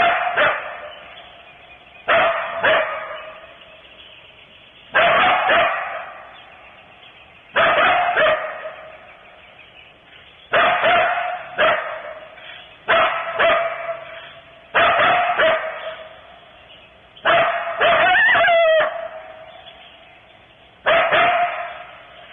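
Coyote barking in short, rough barks every two to three seconds, often in pairs, with a longer wavering yip-howl about eighteen seconds in.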